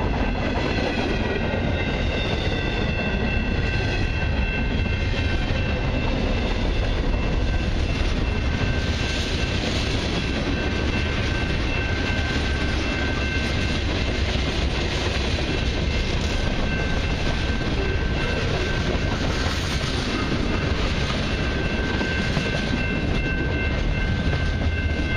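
Freight cars of a long mixed freight train rolling past close by: a steady rumble and rattle of steel wheels on rail with clickety-clack over the joints. Thin, steady high-pitched whines ride over it throughout.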